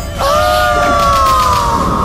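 Fight-scene sound effect for a sword-energy strike: one long pitched tone that begins just after a brief drop-out and glides slowly downward in pitch.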